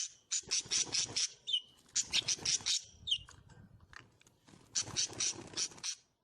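Small pet birds calling: three runs of quick, harsh chattering notes, with a couple of short chirps between them.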